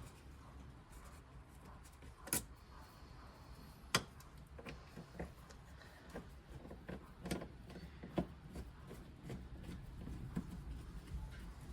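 Scattered clicks and knocks of tools and screws being worked on an aluminium roof rail as its screws are taken out, with two sharper knocks about two and four seconds in and a run of smaller ones later.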